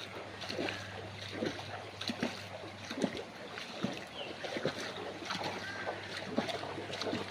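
Floodwater splashing and sloshing in irregular strokes about once or twice a second, like water being stirred by wading or paddling, over a steady low hum.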